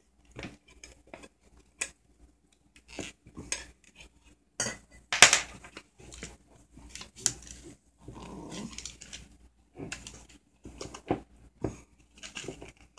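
X-Acto knife cutting and scraping at a speaker's cone and spider, with irregular clicks and scratches, the sharpest about five seconds in. A lower, rougher sound lasts about a second just past eight seconds.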